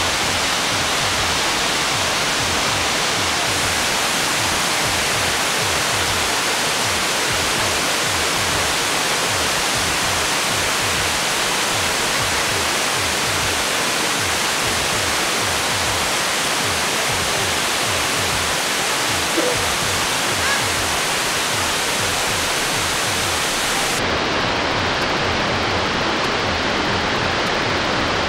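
Waterfall: a steady, unbroken rush of falling water. The highest part of the hiss thins out near the end.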